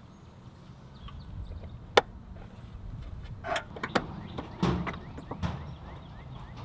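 Hands fitting the rubber spark plug boot cap onto the spark plug of a Vespa LX scooter engine, making plastic clicks and scrapes: one sharp click about two seconds in, then a cluster of clicks and rubbing near the middle as the cap is pushed home.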